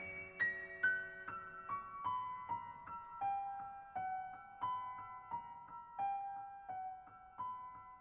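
Background piano music: a slow melody of single notes, about two a second, stepping down in pitch over the first few seconds and then moving gently up and down.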